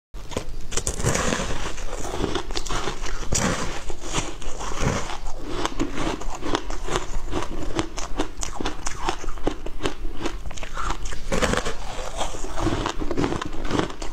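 Close-up crackling and crunching of frozen passion fruit ice: a dense, irregular run of small cracks and crunches.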